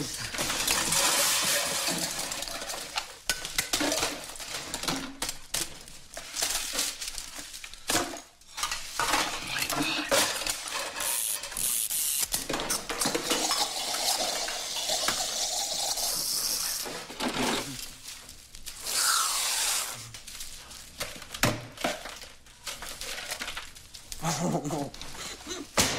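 Soda-fountain utensils being handled: metal cups, scoops and dishes clinking and clattering, broken by several spells of hissing spray, one lasting several seconds around the middle.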